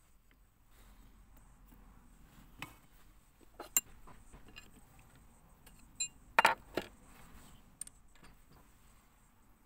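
Metal tools and parts clinking and knocking as they are handled at a lathe, the machine itself not running. There are a few sharp clinks spread out, the loudest a quick group of three about six and a half seconds in.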